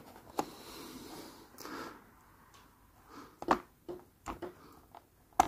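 Faint handling noise from desoldering wires off a model railway point motor: a few scattered small clicks and taps of the soldering iron, wire and plastic point being handled, with quiet between them and the sharpest click near the end.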